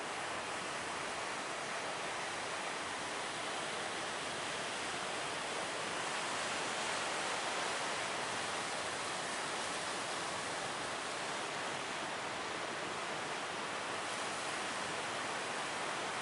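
Large ocean waves breaking as surf, a steady rush of noise that swells slightly about halfway through.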